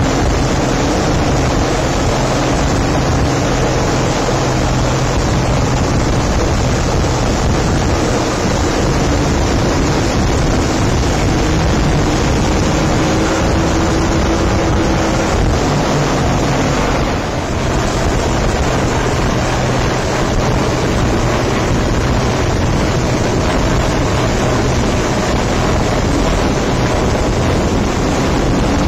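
RNLI inshore lifeboat's outboard engines running at speed through rough sea, a steady low drone under a loud rush of wind on the microphone and spray off the hull, with a Sea King helicopter hovering close overhead.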